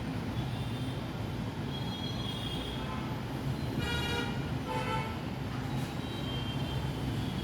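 Steady low background rumble, with two short horn-like toots about four and five seconds in.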